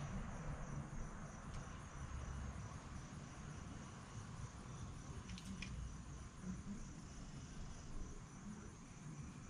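Insects chirping in a steady, high, pulsing trill, with a couple of faint clicks about five and a half seconds in.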